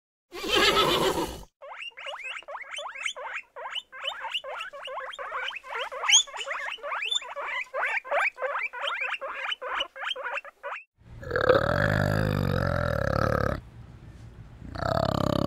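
Animal calls: a short loud call, then about nine seconds of rapid, high, short squeaks of several a second, then a loud, low, grunting call that breaks off and starts again near the end.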